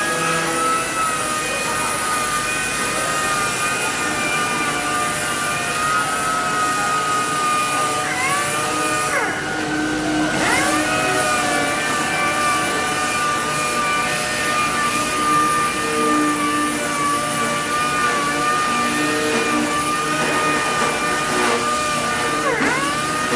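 Power sander running with a steady high whine during sanding, its pitch dipping briefly and recovering about three times.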